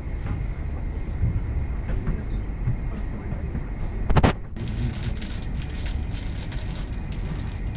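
Inside a moving Lastochka (Siemens Desiro RUS) electric train: a steady low running rumble, with one loud knock about four seconds in, followed by fine rattling clicks.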